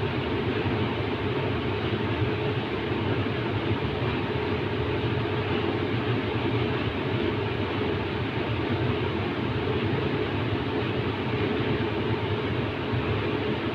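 Steady rumble and hiss of running machinery, unchanging, with no clicks, breaks or speech.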